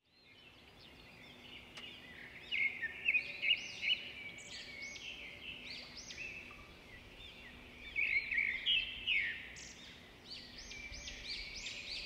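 A crowd of small birds chirping and twittering: many quick overlapping chirps that start about a second and a half in and come in two busier flurries, one around three seconds in and one around eight seconds in.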